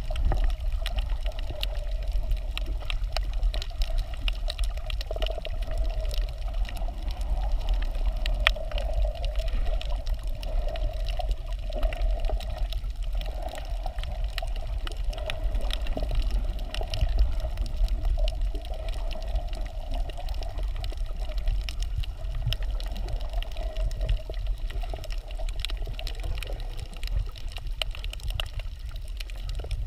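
Underwater sound picked up by a camera in its waterproof housing while snorkelling over a coral reef: a muffled wash of water with a strong low rumble and a steady hum, sprinkled with frequent faint clicks and crackles.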